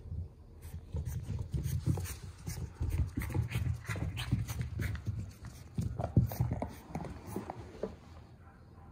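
Boston terrier puppy panting and snuffling while it plays with toys, with irregular scuffles and knocks from its paws and the toys. A sharp knock about six seconds in is the loudest sound.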